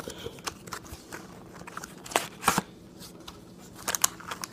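Cardboard box and trading cards being handled and taken out: light rustling with a few sharp clicks and taps, the loudest a little over two seconds in.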